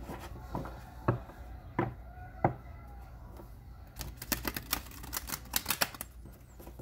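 A deck of oracle cards being shuffled by hand. A few separate snaps of cards come in the first half, then a quick flurry of rapid card clicks for about two seconds, starting about four seconds in.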